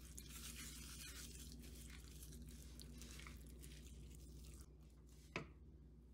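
Faint crinkling and squishing of a thin plastic glove rubbing spice rub and marinade into raw chicken legs, over a faint low hum. A single sharp tap sounds about five seconds in.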